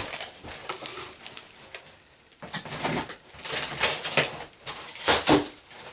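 Foam packing peanuts rustling and shifting in a cardboard box as hands dig through them, in irregular bursts with a brief lull about two seconds in.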